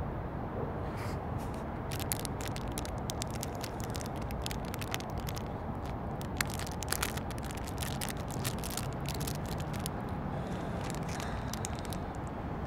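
Irregular crackling and clicking over a steady low rumble, with a few sharper ticks about halfway through.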